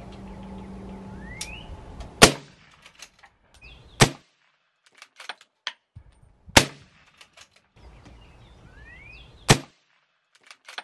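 Four suppressed .308 rifle shots from a SIG Cross bolt-action rifle fitted with a Rugged Razor 7.62 suppressor, spaced about two to three seconds apart, each a sharp crack with a short echoing tail. Fainter metallic clicks between the shots are the bolt being cycled.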